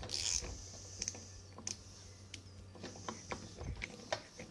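Faint, scattered light clicks and scrapes of door-handle hardware being handled and refitted, over a low steady hum.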